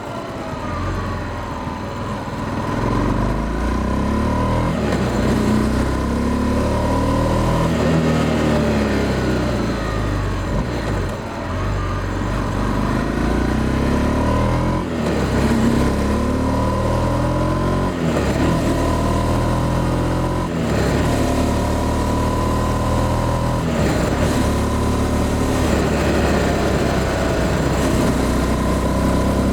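Honda CB300F Twister's single-cylinder engine, heard while riding: its pitch climbs again and again as the bike accelerates, then drops at each gear change.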